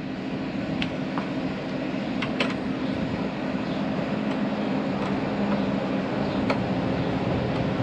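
A steady low mechanical hum, with a few short light clicks of hand tools.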